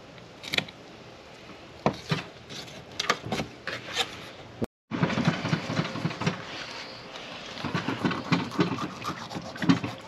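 Fillet knife cutting through a blackfin tuna's tough skin and flesh: a series of sharp crackling clicks as the blade works along the fish, with a denser, crunchy scraping in the second half.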